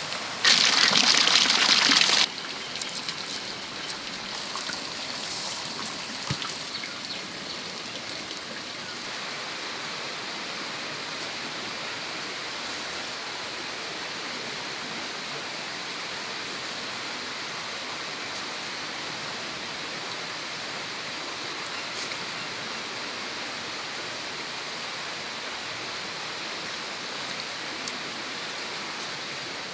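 Steady rushing outdoor background noise, like running water. About half a second in there is a much louder hiss-like burst that lasts nearly two seconds and then stops abruptly.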